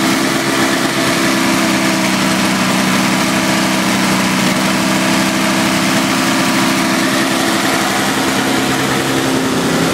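Single-stage snowblower's small two-stroke engine idling steadily, left running to burn off the old gas-and-oil mix in its fuel system.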